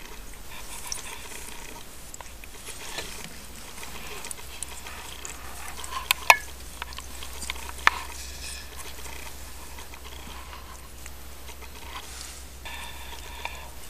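Siamese mother cat and her young kittens shifting about in their bedding: faint rustling, with a few sharp clicks in the middle. Several faint, steady high tones about a second long come and go, the last near the end.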